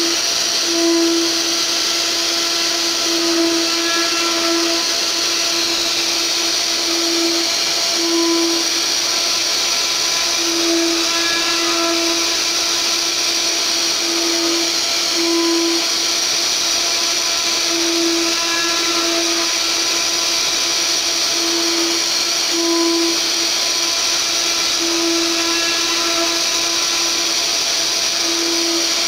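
Spindle of a DIY mini CNC router milling a wood relief with a 4 mm router bit, a steady high whine. A lower tone swells and fades every second or two as the cutter moves through the wood.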